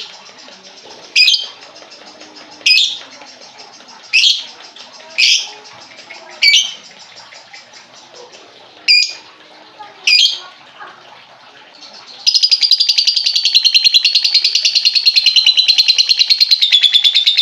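A lovebird gives seven sharp, high single chirps, spaced about a second or two apart. About twelve seconds in it breaks into a loud, continuous rapid chattering song.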